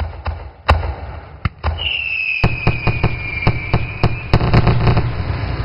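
Fireworks going off in a rapid string of sharp bangs, crowding into a dense volley over the last few seconds. About two seconds in, a whistling firework's whistle sets in and falls slightly in pitch for about two seconds.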